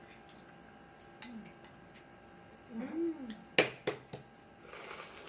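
Metal spoon tapping a balut eggshell to crack it: four sharp clicks in quick succession about three and a half seconds in, the first the loudest. A short hummed 'mm' comes just before, and a soft hiss near the end.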